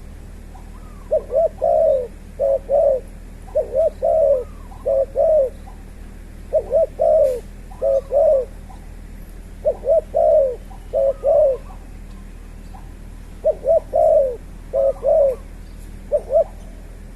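A bird calling in repeated groups of short, low notes, a new phrase every two to three seconds.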